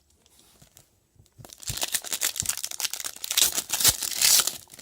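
A trading card pack's foil wrapper being torn open and crinkled: a dense, loud crackling that starts about a second and a half in and runs on until just before the end.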